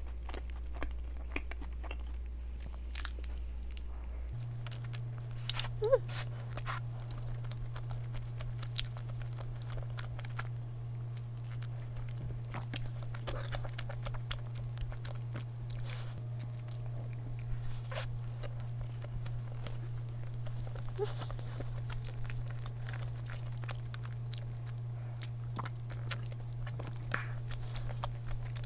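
Close-up chewing and biting of a sugar-coated doughnut, with scattered soft crunches and small clicks of the mouth. A steady low hum runs underneath and shifts up in pitch about four seconds in.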